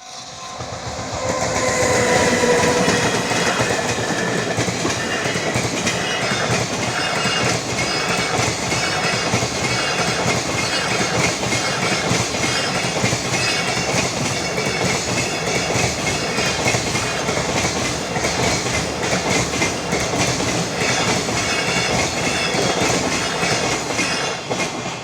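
Freight train passing close by: a brief whine from the locomotive about two seconds in, then a long string of wagons with a steady, rhythmic clickety-clack of wheels over the rail joints.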